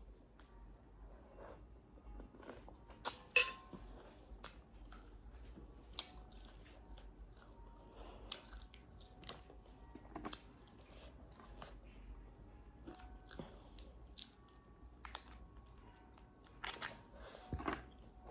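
Close-up eating sounds: irregular chewing and crunching of crisp fried food, loudest in a cluster about three seconds in and again near the end.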